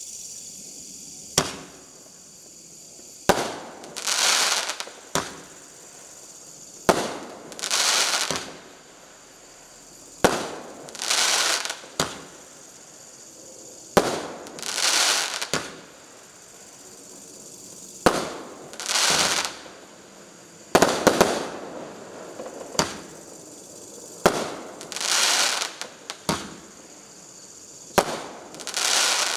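24-shot firework cake with 1.2-inch tubes firing shot after shot, roughly every three to four seconds. Each shot is a sharp bang, most followed by a hissing, crackling burst lasting about a second as the stars break.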